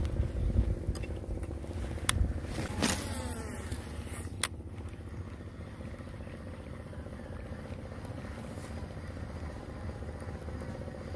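A small engine running steadily, with a couple of sharp clicks and a brief falling swish about two to four seconds in.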